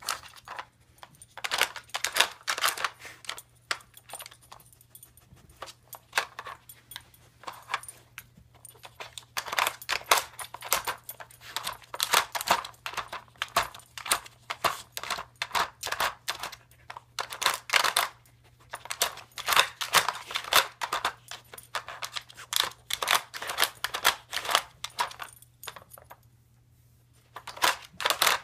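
Plastic puzzle feeder clicking and clattering as a Siberian husky puppy noses and paws its sliding covers and pieces to get at the food. The clicks come in busy spells of a few seconds with short pauses between.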